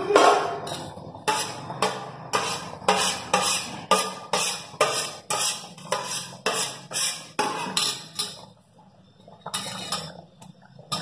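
A fast, even beat of sharp taps, about three a second, that stops about eight seconds in, with a few more taps near the end.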